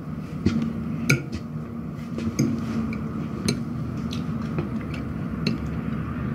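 Metal fork clinking and scraping on a plate as someone eats, a light clink every half second to a second.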